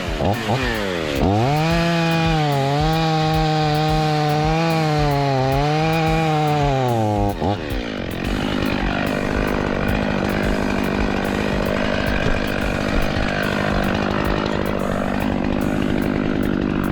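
Stihl MS500i two-stroke chainsaw running at high revs, its pitch swinging up and down as the throttle is worked. About seven seconds in, the pitch drops sharply, and it then runs on at a steadier, lower pitch with a rough, noisy edge.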